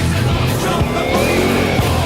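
Loud heavy rock music playing as a soundtrack.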